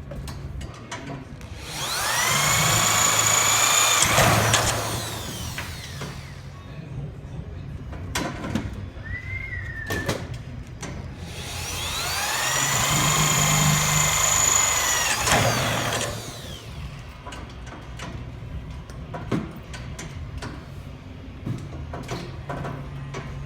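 Power drill with a Milwaukee bit boring holes, run twice for about four seconds each. Each time the motor whine rises as it spins up and falls away as it stops.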